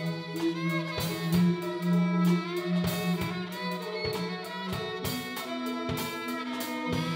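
Live band playing an instrumental passage: a violin melody over a Nord Lead 3 synthesizer, a low held bass note and regular drum kit hits.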